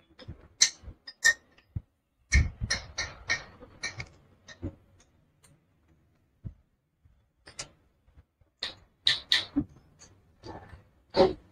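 Metal hand tool clicking against the rocker-block bolts of a Royal Enfield engine's cylinder head as they are turned tight. The clicks are sharp and irregular, come in small clusters with pauses, and the loudest falls near the end.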